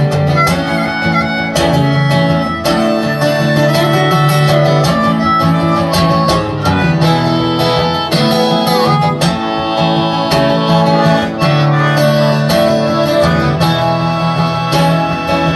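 Instrumental break in a live folk song: a strummed acoustic guitar with a sustained, slightly bending melody line carried over it.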